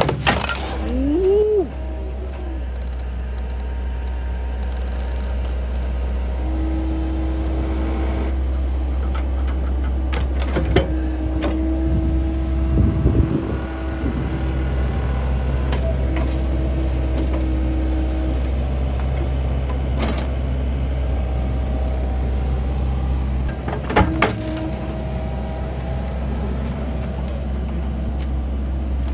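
Komatsu hydraulic excavator's diesel engine running steadily under load as it lifts a log with its grapple to free a pinched chainsaw, with a low hum, a steady hydraulic whine and a few knocks of the grapple against the log.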